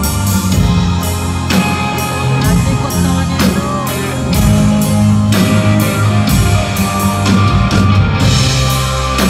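Live band playing: an electric guitar lead over bass guitar and a drum kit keeping a steady beat of about two hits a second.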